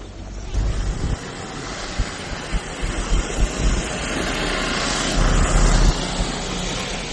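Road and wind noise of a car driving along city streets: a steady rushing with uneven low rumbles, swelling louder about five seconds in before easing back.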